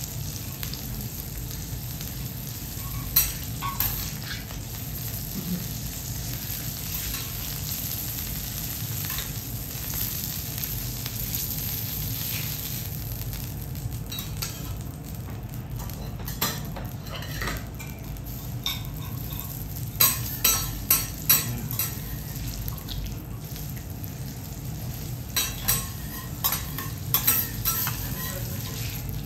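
Fillet steak searing on a steel teppanyaki griddle, sizzling steadily. Sharp clinks and scrapes of metal spatulas on the griddle come a few times, most of them in the middle and near the end.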